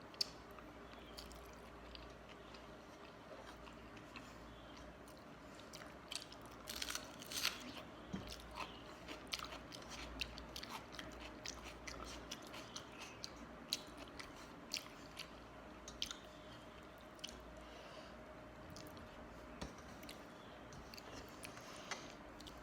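A person eating panta bhat (soaked fermented rice) close to the microphone: irregular wet chewing and mouth clicks, starting about a quarter of the way in, over a faint steady hum.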